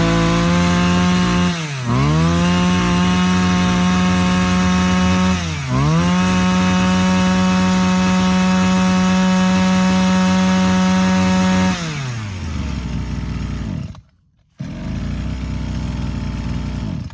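A 24cc brush cutter's small two-stroke engine running at full throttle. It dips and picks up again twice, then drops back to idle about twelve seconds in and cuts off about two seconds later. After a brief silence a lower, steady engine sound runs for the last few seconds.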